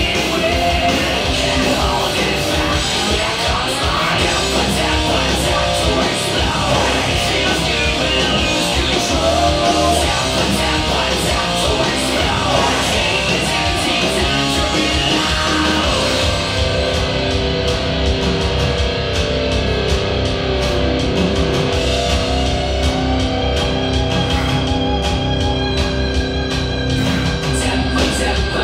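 Rock music with guitar playing steadily throughout.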